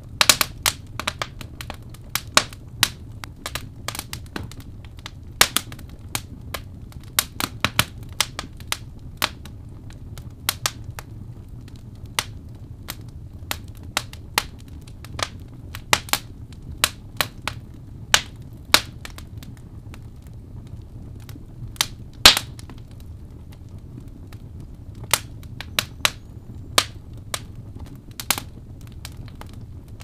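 Log fire in a fireplace crackling: irregular sharp pops and snaps, about one or two a second and the loudest about two-thirds of the way in, over a steady low rumble of the flames.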